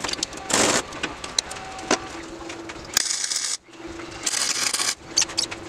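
MIG welder laying short tack welds on steel scrap parts: two bursts of arc crackle, each under a second, about three and four seconds in, with a low steady hum between them. A few sharp clicks of metal parts being handled come first.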